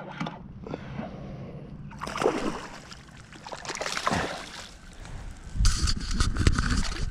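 Water splashing and sloshing beside a kayak as a small largemouth bass is fought and brought in, with the loudest, heaviest splashing near the end.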